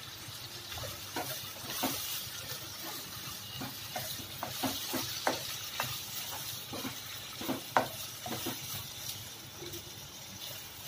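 Spatula stirring chopped tomatoes and onions in a non-stick frying pan, with irregular scraping knocks against the pan, over a faint steady sizzle of the vegetables cooking in oil.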